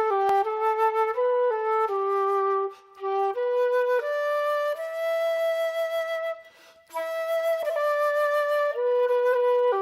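Solo flute playing a slow melody of held notes, broken by two short gaps about three seconds and six and a half seconds in.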